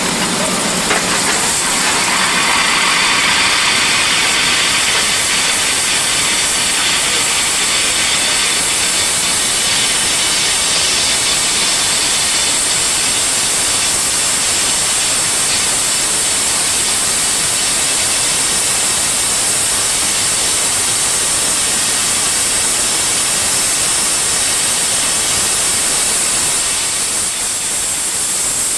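Narrow-gauge steam locomotive standing and blowing off steam low around its cylinders: a loud, steady hiss that builds up about a second in and carries on unbroken.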